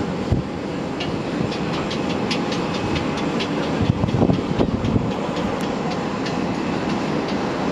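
Steady, distant rumble of a Bombardier Dash 8 Q400 turboprop's engines as it rolls along the runway, with scattered light clicks.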